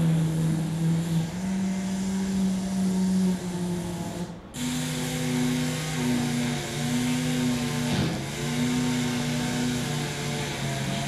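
A buzzing motor-like hum made of steady tones that step up and down in pitch every second or two. It breaks off briefly about four and a half seconds in, then carries on.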